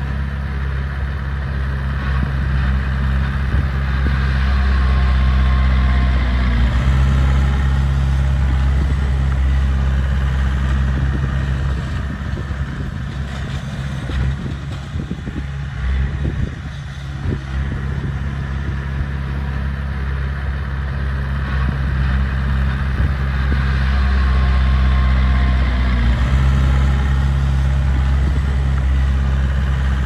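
Small crawler bulldozer's diesel engine running under load while pushing soil, a steady low drone that swells louder twice and eases off in between.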